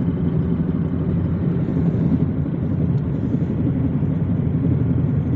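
Škoda Octavia A7 engine running steadily, with the knocking from under the bonnet that the owner finds strange and cannot explain.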